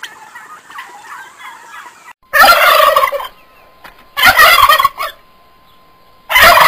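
Turkey gobbling loudly three times, each gobble about a second long and roughly two seconds apart, after a couple of seconds of soft chattering calls from the flock.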